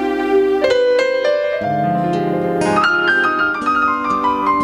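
Electronic keyboard playing an instrumental passage in a piano-like voice: a melody of single notes stepping upward over held chords.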